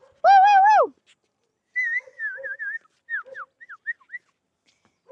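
A small dog whimpering in high cries, and someone whistling: one long cry near the start, a warbling whistled note about two seconds in, then a few short falling high notes.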